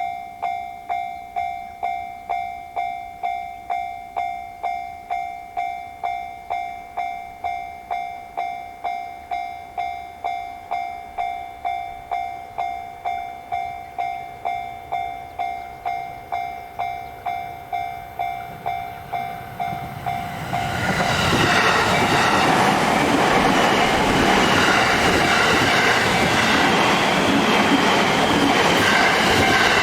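Japanese level-crossing warning bell ringing steadily, about two dings a second. About 21 seconds in, a JR Sobu Line train runs through the crossing, and its loud running noise covers the bell.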